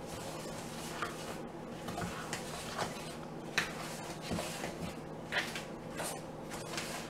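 Spatula stirring a very thick cranberry batter in a mixing bowl, with irregular short scrapes and knocks against the bowl over a faint steady hum.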